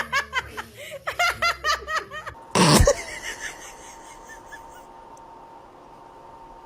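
A person laughing in quick, high-pitched bursts for about two seconds, then a short loud burst of noise, after which only a faint steady hum remains.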